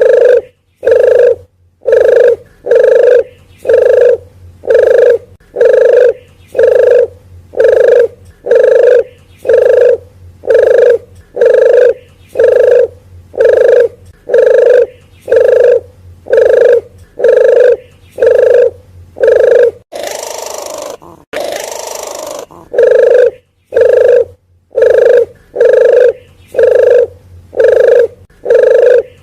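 Repeated dove lure call of the puter geni (wild dove): short, loud, steady coo notes at about one a second. Around twenty seconds in they break for a couple of longer, harsher noisy sounds, then resume.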